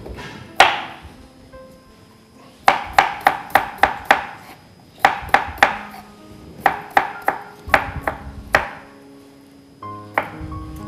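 Chef's knife slicing a cucumber on a wooden cutting board: quick runs of sharp chops, several strokes to a run, with short pauses between runs.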